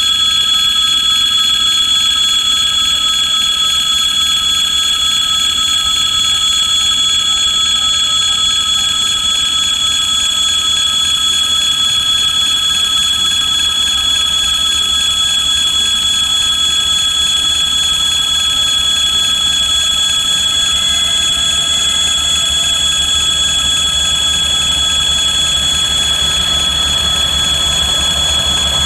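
Railroad level-crossing warning bell ringing continuously with a steady high ring. In the last few seconds the low rumble of an approaching 2M62U diesel freight locomotive builds beneath it.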